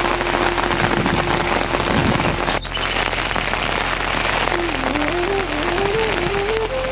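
Heavy rain pouring down steadily. A steady hum runs under it until a sudden break about two and a half seconds in, and near the end a short run of stepped rising and falling notes sounds over the rain.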